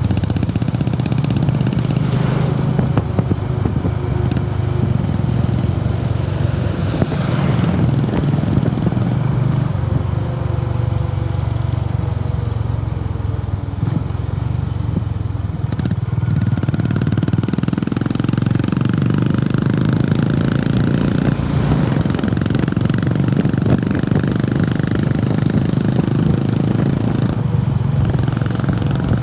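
Honda CB350RS's air-cooled single-cylinder engine and exhaust running steadily as the motorcycle is ridden, with wind noise over it.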